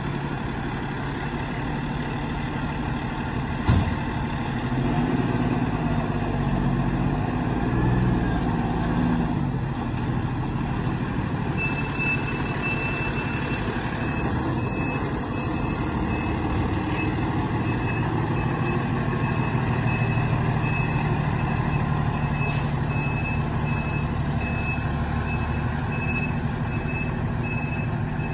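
Fire engine's diesel engine running as the truck drives, its pitch rising and falling with speed, with one sharp knock about four seconds in. From about twelve seconds in, the truck's reversing alarm beeps steadily over the engine as it backs into the station bay.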